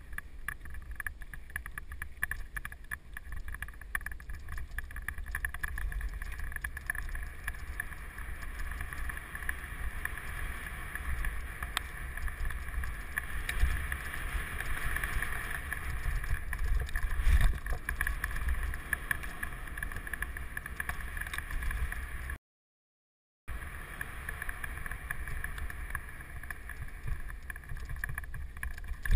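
Mountain bike descending a rough dirt trail: a steady rumble of tyres over dirt and rock with the bike rattling, and wind buffeting the microphone. The sound cuts out completely for about a second near the end.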